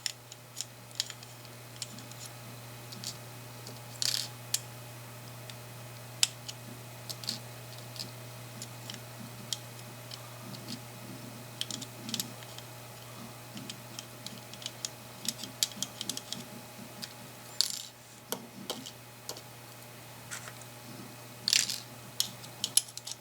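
Scattered light metallic clicks and clinks of small screws tapping and dropping against the tip of a freshly magnetized precision screwdriver bit as it picks them up, over a steady low hum.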